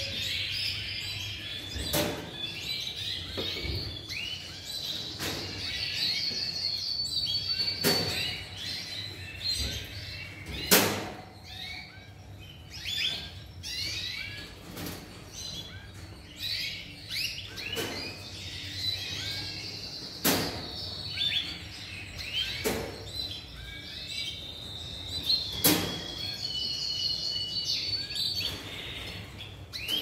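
Many Yorkshire canaries chirping and singing, with high trills throughout. Sharp plastic-on-wire clacks come every couple of seconds as water drinkers are pulled from and slotted back into the cage fronts; the loudest clack is about 11 seconds in.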